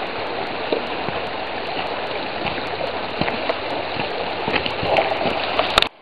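Fast-moving freestone creek rushing steadily over gravel and stones, with a few small knocks and a sharp click just before the sound cuts off near the end.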